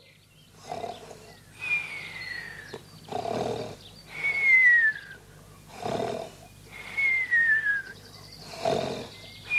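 Cartoonish snoring, as if asleep: a rasping snore followed by a thin falling whistle, repeated about every three seconds. It is Urmel faking sleep.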